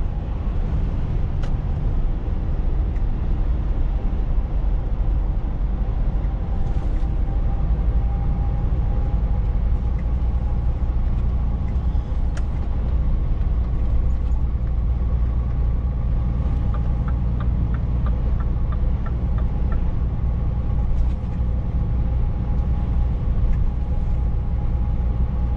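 Scania S500 truck's engine and tyre noise heard inside the cab at steady motorway cruising speed: a constant deep rumble with a faint steady hum on top. About two thirds of the way through, a short run of evenly spaced light ticks sounds for a few seconds.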